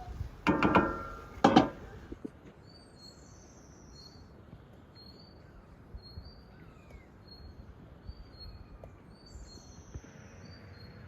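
Two loud, short calls about a second apart near the start, then small birds chirping, a short high note about every second.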